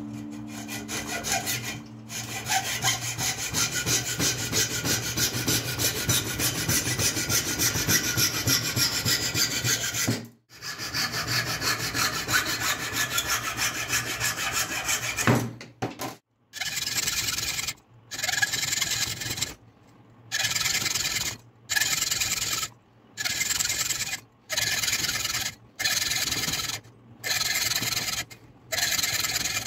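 Hacksaw cutting into a wooden block held in a bench vise, with fast back-and-forth rasping strokes. It saws steadily for about fifteen seconds, pausing once about ten seconds in, then goes on in short bursts of about a second each with brief pauses, as a row of slots is cut one after another.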